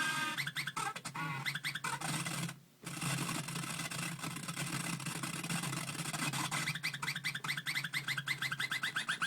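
Circuit-bent toy sound effects machine sending out a string of short, rising electronic chirps over a steady low hum. It cuts out briefly about two and a half seconds in, and the chirps come faster and denser in the second half.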